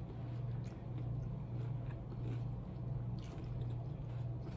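Soft chewing and mouth sounds of people eating, with a few faint clicks, over a steady low hum.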